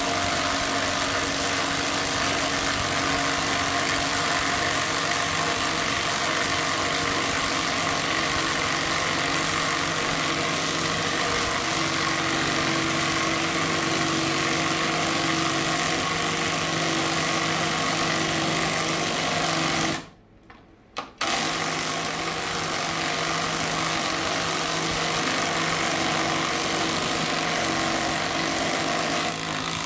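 Two 20V brushless mid-torque impact wrenches, a Kimo and a Hercules, hammering together on high as they drive 8-inch lag bolts with 19 mm sockets into a wooden beam, a loud steady hammering. The sound cuts out for about a second roughly two-thirds of the way through, then carries on.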